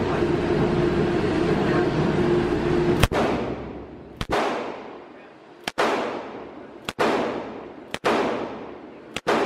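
Six shots from a Smith & Wesson .357 Magnum revolver, fired about a second apart after a steady hum for the first three seconds. Each shot rings out with a long echo off the walls of the indoor range.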